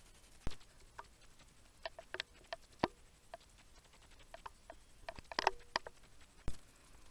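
Scattered light clicks and taps in small clusters, with two dull thumps, one about half a second in and one near the end.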